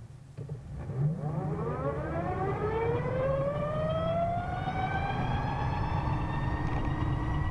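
Vectrix VX-1 electric maxi-scooter accelerating from a stop: its straight-cut reduction gear whines. The whine begins about a second in, rises steadily in pitch as the bike speeds up and levels off near the end, over a steady low rumble.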